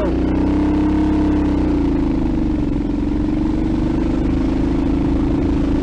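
Predator 301cc single-cylinder four-stroke engine of a mini bike pulling steadily under load up a hill. Its pitch dips slightly about a second and a half in, then holds level.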